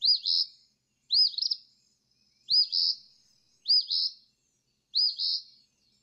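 Eastern phoebe singing its two-part 'fee-bee' song five times, a phrase a little more than once a second. Each phrase is a quick high note that rises and falls, followed by a rougher second part.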